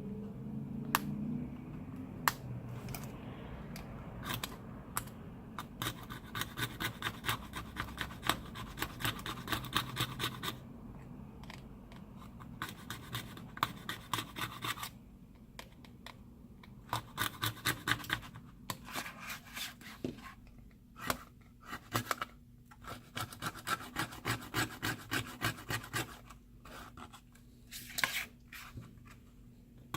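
Flat screwdriver scraping leftover glass shards and hardened glue off a Samsung Galaxy J7 Prime's frame, in runs of quick back-and-forth strokes with short pauses between them.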